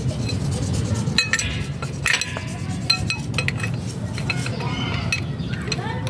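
Metal clinks and clicks from a hydraulic floor jack and its steel handle being worked under the car, irregular and sharp, over a steady low rumble.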